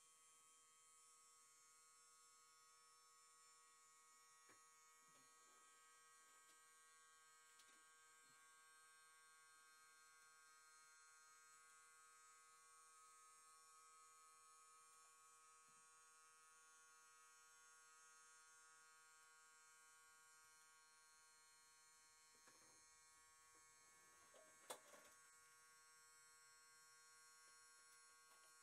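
Near silence: a faint steady electrical hum with a few soft knocks and one sharper click near the end.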